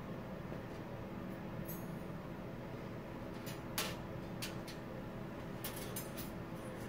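Surgical instruments clinking as they are picked out of a metal instrument tray and laid on the table: a handful of light metallic clicks, the sharpest about four seconds in and a quick cluster near the end, over a steady low hum.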